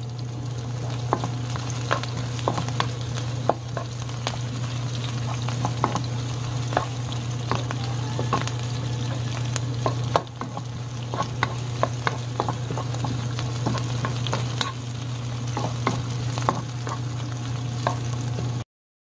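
Pork and green onion sizzling in an oiled nonstick frying pan while a spatula stirs them, with frequent sharp clicks and scrapes of the spatula on the pan. A steady low hum runs underneath, and everything cuts off suddenly near the end.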